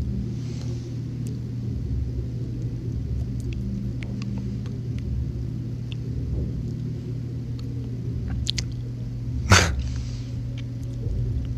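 Steady low room hum with a few faint clicks, broken about nine and a half seconds in by one short, loud sound.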